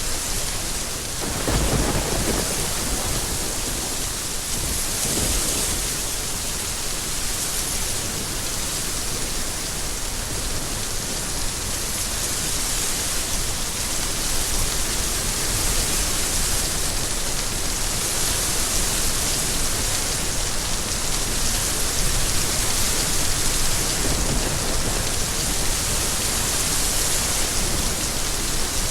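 Steady rain falling, with a clap of thunder rumbling about a second and a half in and a weaker rumble around five seconds.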